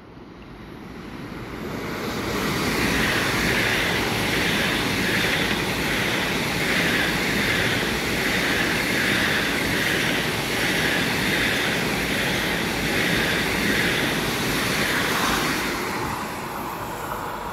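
Eurostar high-speed train passing through a station at speed, without stopping. Its rush builds over the first two seconds into a loud, steady roar with regular pulses, about one and a half a second, as the carriages and wheelsets go by. The roar fades near the end as the tail passes.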